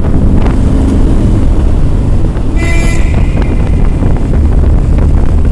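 One short vehicle horn beep about halfway through, under half a second long, over a steady low rumble of wind on the microphone and a running vehicle.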